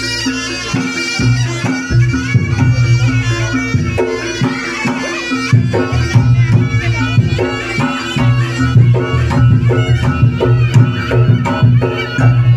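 Reog Ponorogo gamelan music: a slompret's nasal reed melody wavers over a steady low drone, with regular drum strokes.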